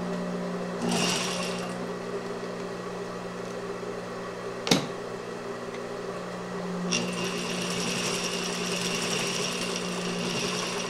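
Juki industrial sewing machine: its motor hums steadily while it stitches a mask seam in a short run about a second in, then in a longer run near the end. A single sharp click sounds near the middle.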